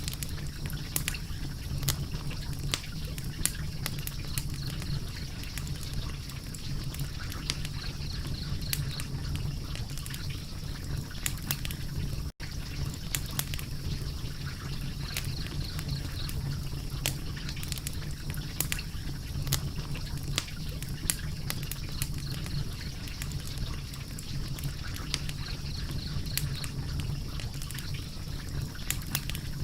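Wood fire crackling, with frequent sharp pops over a steady low rumble; the sound cuts out for a moment about twelve seconds in.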